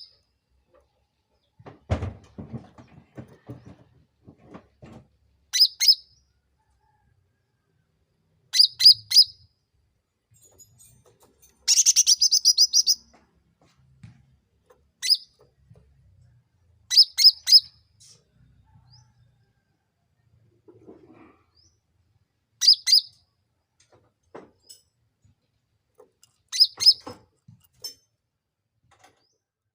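Cucak ranting songbird calling in short, sharp chirping phrases every few seconds, with one longer run of song near the middle. A few low thumps sound a couple of seconds in.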